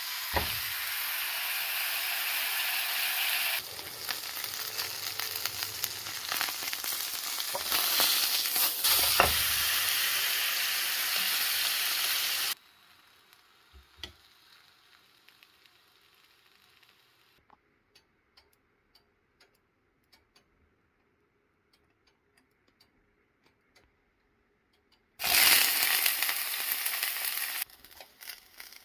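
Ribeye steak frying in a hot pan: loud, even sizzling for about the first twelve seconds, dropping abruptly to faint crackles and ticks, then loud sizzling again for a couple of seconds near the end.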